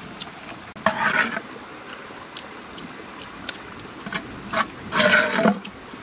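Coconut-shell scoop scraping cooked rice out of a pot, two main scrapes about a second in and about five seconds in, with a few light knocks between.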